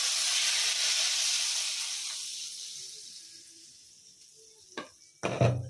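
Hot mustard-oil tadka with garlic and spices poured into a pan of spinach and brinjal curry, sizzling loudly and dying away over about four seconds. Near the end comes a short clatter as a glass lid goes onto the pan.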